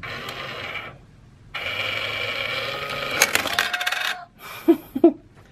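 Itazura calico-cat coin bank taking a quarter: its small battery motor whirs as the cat's paw comes out and drags the coin off the fish-shaped plate. A metallic coin clink comes about three seconds in, with a few light clicks near the end.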